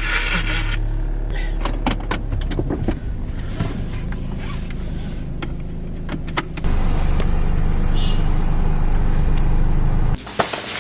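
Car interior driving noise: a steady low engine and road rumble with scattered clicks and knocks. It gets louder about two-thirds of the way in and cuts off abruptly near the end.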